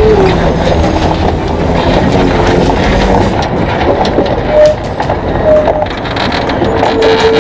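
Loaded Volvo FH16 logging truck rolling slowly downhill on a gravel mountain track, heard close to the trailer's rear wheels: a steady rumble of tyres on gravel and a rattling chassis, with short squeals now and then.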